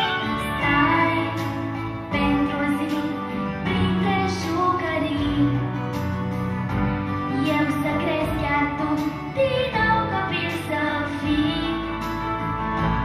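A young girl singing a pop ballad into a microphone over instrumental accompaniment.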